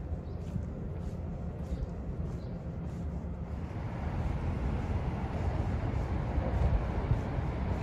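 Outdoor road-traffic noise: a steady low rumble, with a hiss of passing traffic swelling in about halfway through and growing louder.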